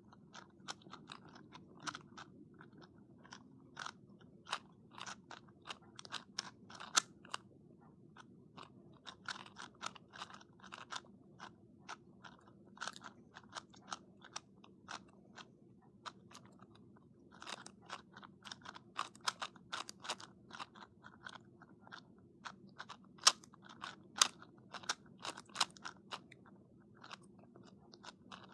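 Plastic 2x2 speed cubes being turned fast by hand: a rapid, uneven clatter of clicks as the layers snap round, with the thickest flurries in the last third.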